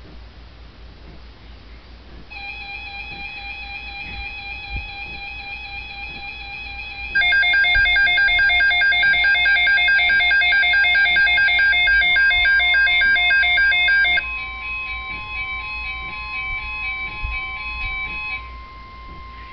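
Weather alert radios sounding their alarms for an emergency alert, a severe thunderstorm watch. A stepped, warbling beep starts about two seconds in and is joined by a much louder rapid beeping from about seven to fourteen seconds. A steady single-pitch NOAA Weather Radio alert tone comes in about twelve seconds in, and the radio beeping stops about a second before the end.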